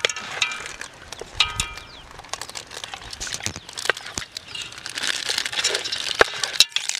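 Wet squishing and rustling of a hand mixing whole dressed pigeons with turmeric in a metal pot, with scattered clicks and knocks against the pot, thickest between about five and six and a half seconds in.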